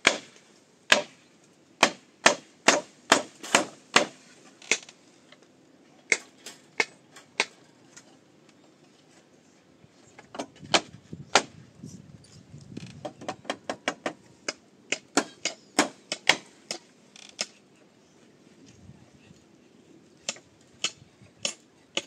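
Hammering: runs of sharp knocks, two or three a second, broken by pauses of a couple of seconds.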